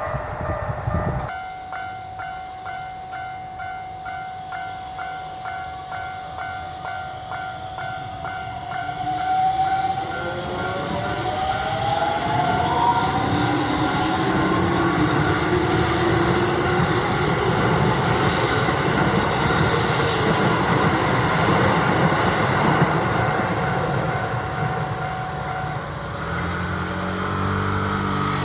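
Japanese level-crossing warning bell clanging about twice a second. A Keisei 3700-series electric train then approaches and passes over the crossing, its motors giving a rising whine before the loud rumble and wheel noise of the cars going by, with the bell still ringing under it.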